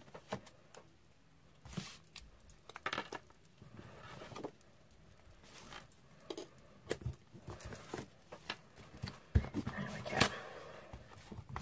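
A gel printing plate and sheets of paper being handled on a desk: scattered rustles, light taps and soft peeling sounds as the plate is lifted off the print and set down.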